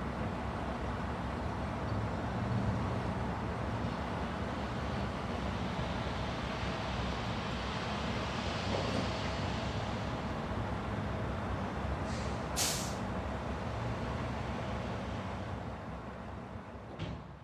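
Construction-site ambience: a steady rumble of heavy machinery and vehicles, with a short sharp hiss about twelve seconds in and a smaller one near the end. The sound fades out over the last couple of seconds.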